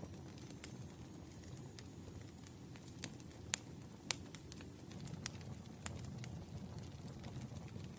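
Wood fire burning in a fireplace: a low steady rumble of flames with irregular sharp crackles and pops.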